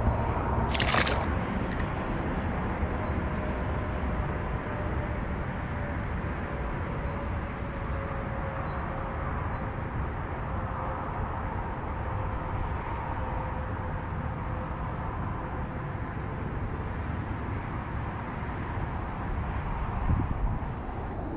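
Steady wind noise on the microphone over moving water, with one sharp click about a second in.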